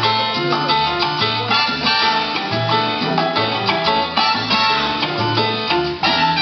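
Latin dance music playing, with a repeating bass line under a busy rhythmic accompaniment.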